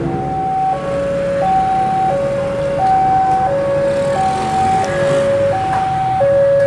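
Railway level-crossing warning signal sounding a steady two-tone alarm, a higher and a lower note alternating, each held a little under a second, warning that the barrier is closing for a train. A low rumble lies beneath it.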